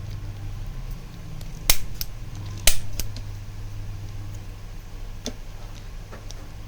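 Sharp metallic clicks of a manual stainless-steel chiropractic adjusting gun (spine activator): two loud snaps about a second apart, then a few fainter clicks, over a steady low hum.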